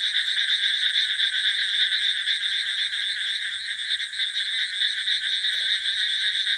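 Steady, dense night chorus of many frogs calling at once, a fast high-pitched trilling that never pauses.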